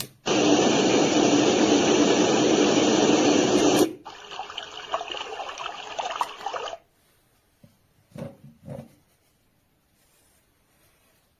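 Sound machine playing recorded water sounds: a steady, loud rushing of water for about four seconds, then a switch to a second, less even water sound that cuts off suddenly a little past halfway, leaving near silence with two faint short blips.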